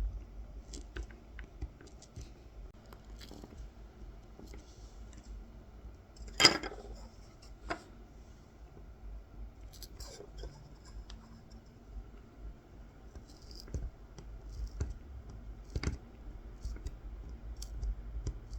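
Kolrosing knife scoring fine lines into a wooden coffee scoop: light scratching cuts and small scattered clicks, with one sharper knock about six and a half seconds in.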